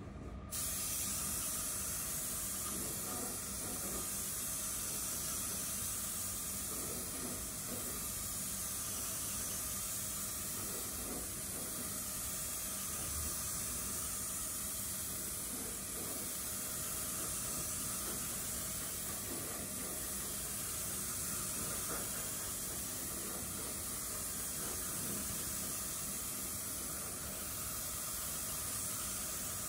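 Anest Iwata spray gun with a 1.3 mm nozzle spraying car paint: a steady hiss of compressed air that starts about half a second in and carries on without a break.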